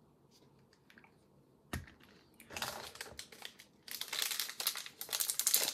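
Plastic packaging crinkling in bursts as it is handled, after a single light knock a little under two seconds in.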